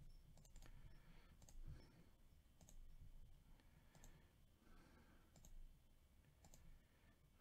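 Faint computer mouse clicks, a dozen or so at irregular intervals, against near silence. They come as a list is copied into a web page and its randomize button is clicked over and over.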